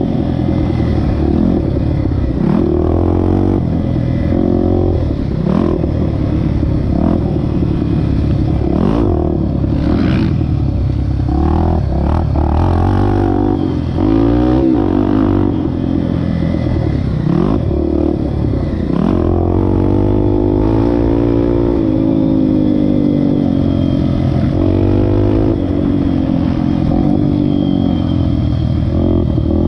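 Honda XR250 Tornado's single-cylinder four-stroke engine revving up and down over and over as the motorcycle is ridden, with occasional sharp knocks.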